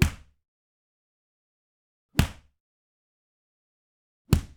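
Punch sound effect played three times, about two seconds apart: each a sharp hit with a deep thump that dies away within a few tenths of a second.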